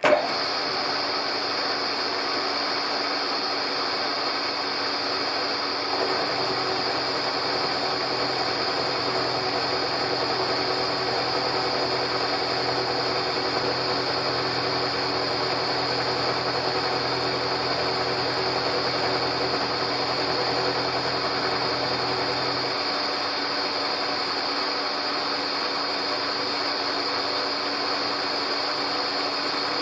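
Beaver VBRP turret milling machine running steadily with a high whine as its end mill takes a light, slow-fed cut along the edge of thin O2 ground flat stock. A lower hum joins about six seconds in and drops out about two-thirds of the way through.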